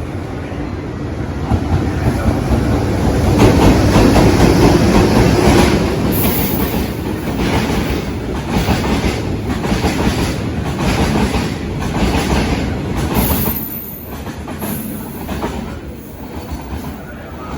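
Freight train passing close by: a loud rumble swells over the first few seconds, then the wagons' wheels clack rhythmically over the rail joints, and the sound eases off near the end.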